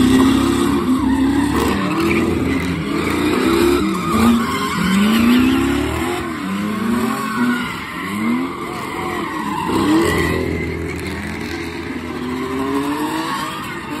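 Ford Mustang GT V8 and Infiniti G35 sedan doing donuts: engines revving up and down over and over, with tyres squealing and skidding across the pavement.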